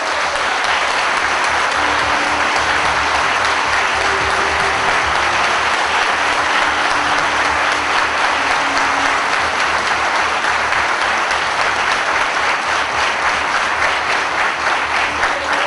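Audience applauding loudly and without a break, a sustained round of clapping.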